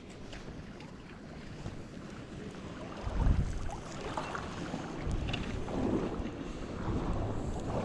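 Wind buffeting the microphone in gusts over a steady rush of river water, the gusts growing stronger about three seconds in.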